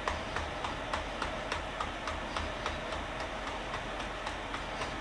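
Rapid, even ticking, about three to four ticks a second, over a steady low hum.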